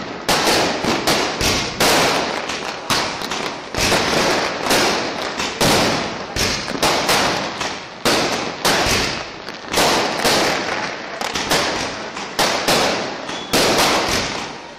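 Firecrackers going off one after another, about two to three loud bangs a second, each with a short rattling tail.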